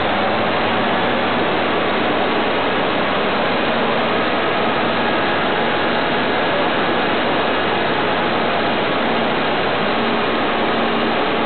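Mercedes-Benz O404 coach's twin-turbo diesel engine running at a steady speed: an even, loud rushing noise with a faint steady hum underneath.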